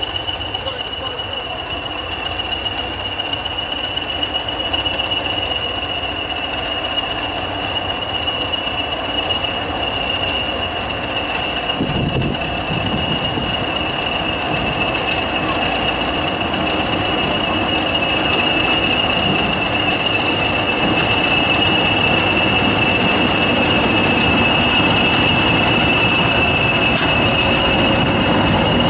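Two English Electric Class 20 diesel locomotives running slowly toward and past the camera, the engine noise building as they come near. A steady high-pitched whistle runs over the engine throughout.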